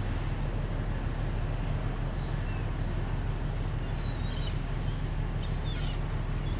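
Steady low rumble of a ship's engine across the water, with a few faint high bird chirps about two, four and five and a half seconds in.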